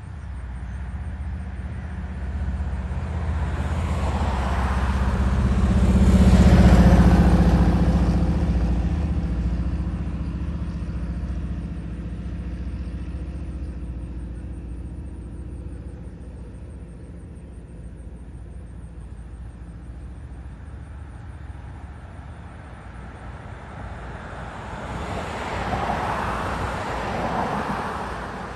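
Road vehicles passing close by, one after another: the first, louder, swells to a peak about seven seconds in and fades, and a second passes near the end.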